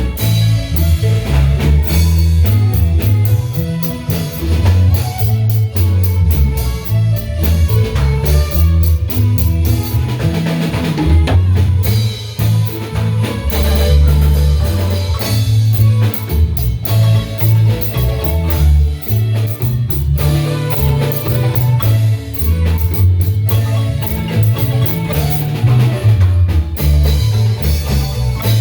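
Marimba band playing live: a dance tune on marimba over a drum kit beat and a deep bass line.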